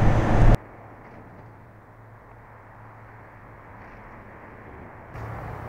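Traffic noise with a steady low hum cuts off abruptly about half a second in. A faint, steady background hiss follows and gets a little louder near the end.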